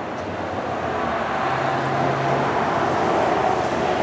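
Street traffic: a motor vehicle going by, its rushing road noise growing louder over the first couple of seconds and then holding steady.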